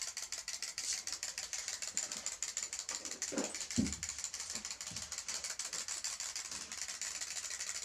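Wind-up clockwork toy chicks hopping, their spring mechanisms giving a rapid, steady ticking and clicking. A short louder knock comes a little before four seconds in.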